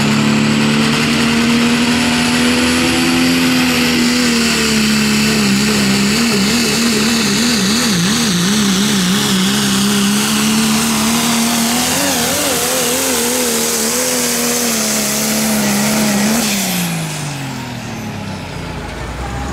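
Pulling truck or tractor engine running loud at full throttle during a pull. Its pitch holds steady, wavers rapidly for several seconds mid-run, then falls away near the end as the throttle comes off.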